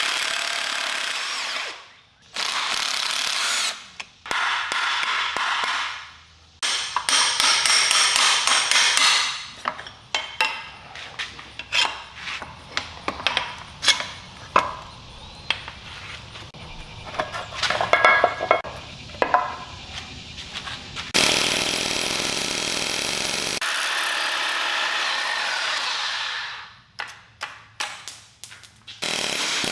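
Power tools running in several bursts of a few seconds each, starting and stopping abruptly. In the middle there is a stretch of sharp clicks, taps and knocks of hand work.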